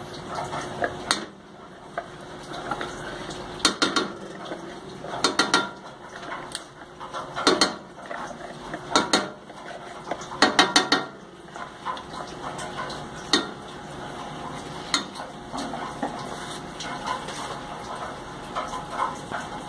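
Knocks and clinks from an aluminium saucepan on a gas stove as condensed milk is squeezed in from a carton and stirred with a spatula. They come in short clusters every second or two.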